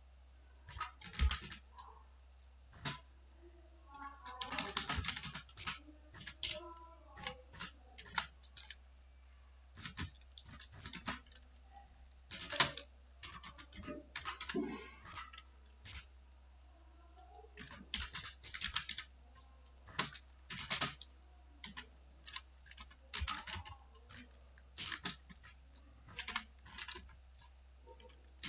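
Computer keyboard keys clicking in irregular runs as someone types, with short pauses between the runs.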